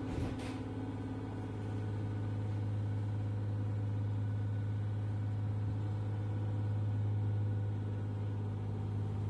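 Steady low hum and rumble inside an S-Bahn train carriage, with two brief clicks at the very start.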